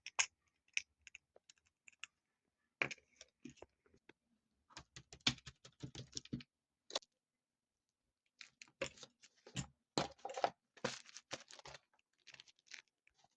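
Small fidget toys and their plastic packaging being handled and set down: scattered light clicks, taps and rustles in irregular clusters.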